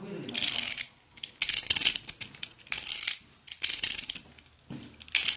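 Utility knife (box cutter) blade being ratcheted out and back in: runs of rapid sharp clicks in about five bursts. Very loud.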